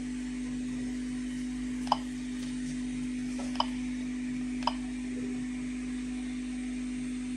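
Geiger-counter dosimeter clicking three times at uneven intervals, each short click a registered particle at a sparse count rate, over a steady low hum.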